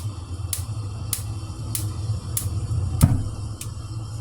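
Kitchen sounds: a steady low hum with a faint tick about every 0.6 seconds, and a single sharp knock about three seconds in.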